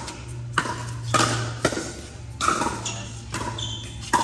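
Pickleball paddles hitting a plastic ball in a rally: a quick string of sharp pops, roughly two a second, each ringing briefly, over a steady low hum. A short high squeak comes near the end.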